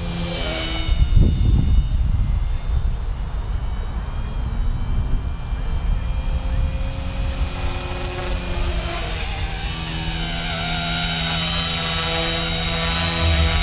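Small electric RC collective-pitch helicopter (Blade 130 S mechanics) flying: a steady high motor and rotor whine that grows louder toward the end as it comes close and hovers, the pitch shifting slightly about two-thirds of the way in.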